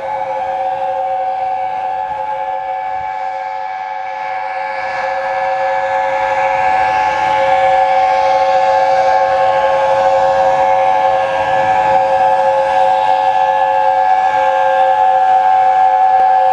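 Chime whistle of the Peppercorn A1 steam locomotive Tornado held in one very long, unbroken blast, several notes sounding together as a steady chord. It grows louder about a third of the way through.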